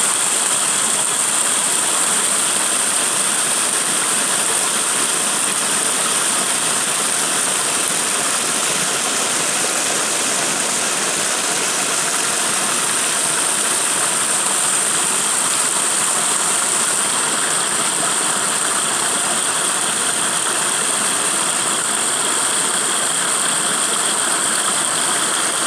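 Muddy runoff water rushing steadily over rocks in a small flooded stream channel, an even splashing roar with no breaks.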